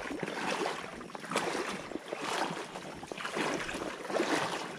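Wading steps through shallow water and mud in waders: a slosh about once a second.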